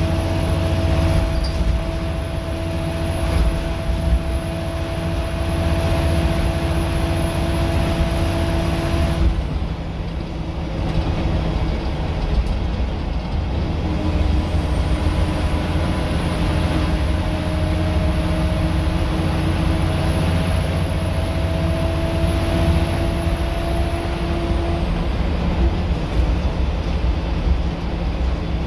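Scania L94UB bus's diesel engine and drivetrain heard from inside the passenger saloon while under way, driven hard. A loud, steady drone with a pitched whine on top. The whine drops away about nine seconds in, then comes back and slowly climbs from about fourteen seconds until it fades near the end.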